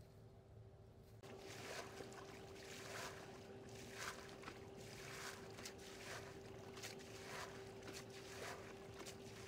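Water being bailed out of a shallow muddy canal with a plastic basin: repeated scoops and splashes, one or two a second, starting about a second in.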